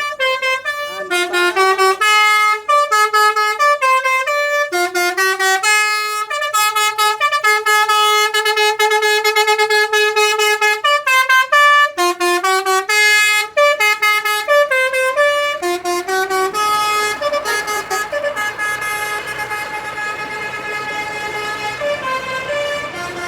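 Bus telolet horn, a multi-tone air horn, playing a tune of quick stepped notes with a long held note in the middle. From about 16 seconds in the tones turn steadier and overlap over a noisy rumble.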